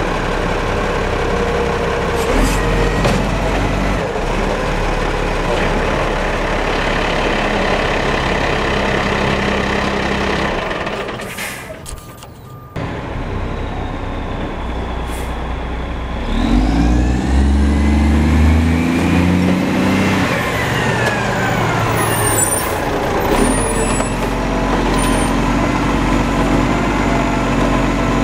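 Iveco Acco side-loader rubbish truck's diesel engine running, with the engine pitch rising and falling from about halfway through as it pulls up to a bin. There are short air-brake hisses near the end, and the sound drops out briefly about 12 seconds in.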